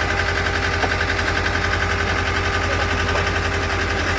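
Self-driven hydraulic crash-barrier pile driver running, a steady, rapid, even pulsing over a low drone.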